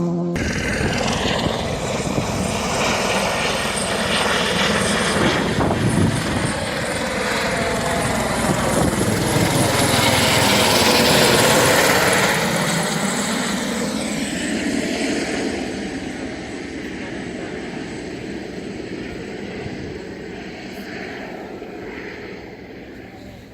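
Helicopter passing overhead, a steady beating drone that swells to its loudest about halfway through and then fades away.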